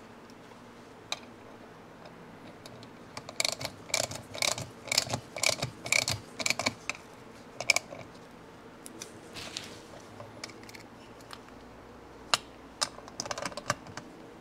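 Small socket ratchet clicking as it drives an 8 mm bolt into an aluminium motorcycle crankcase. There is a run of quick clicks for several seconds, then a shorter run near the end.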